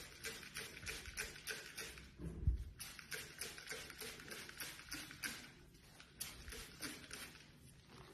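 Hand spray bottle pumped over and over in quick short squirts, about four a second, fewer near the end. A dull thump about two and a half seconds in.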